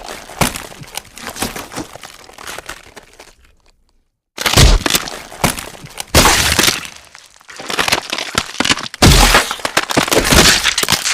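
Gore sound effects of bones cracking and crunching, in three separate bursts of rapid snapping cracks, each dying away before a short silence.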